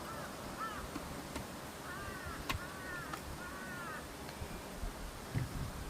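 Crows cawing in short series of arched calls, two near the start and a run of three in the middle, over a steady outdoor hiss. There are a few sharp clicks and a low thump near the end.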